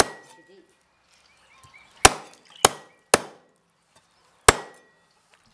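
Meat cleaver chopping a raw hen on a thick round wooden chopping block: five sharp chops, three of them in quick succession about two seconds in.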